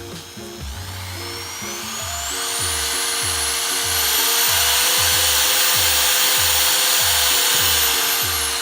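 Power drill spinning up to full speed, running steadily for several seconds and winding down near the end, over background music with a steady beat.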